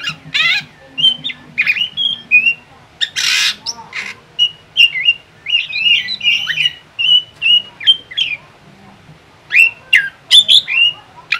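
Drongo singing: a rapid, varied string of short whistled notes and chirps, broken by a couple of harsh rasping calls, the first about half a second in and another around three seconds in.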